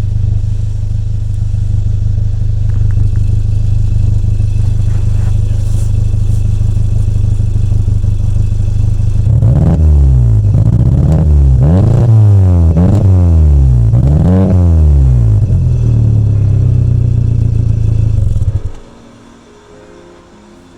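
Renault Clio petrol engine idling while misfiring on cylinder 1 from a failing ignition coil pack, revved up and down several times in quick succession around the middle, then cutting off near the end.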